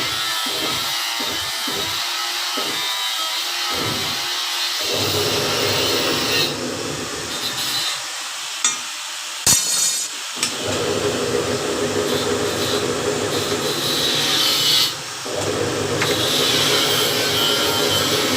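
A power tool working metal, running steadily with a harsh hiss. It eases off twice briefly, once near the middle with a sharp click, and again about two-thirds of the way through.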